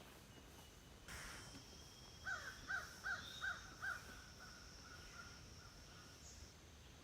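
A bird gives five short calls in quick succession, about a second and a half in all, over a steady high insect buzz.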